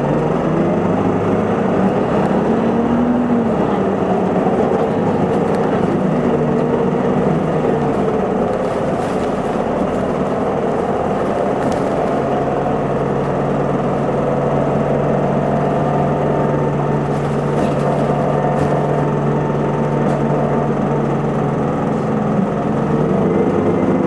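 Isuzu Erga city bus running, heard on board. The engine note rises and falls in the first few seconds, holds one steady pitch for about ten seconds in the middle, and rises again near the end.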